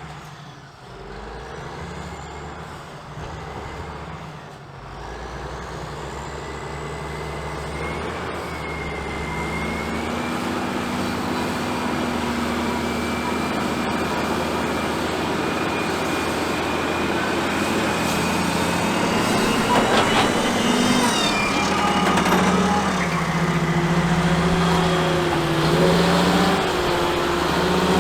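Caterpillar 627G twin-engine scraper's diesel engines running, growing steadily louder, with a high whine over the engine note; the engine pitch steps up about ten seconds in and rises and falls near the end.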